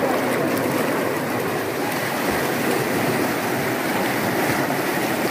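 Water rushing steadily down a concrete reservoir spillway and churning into white water at its foot.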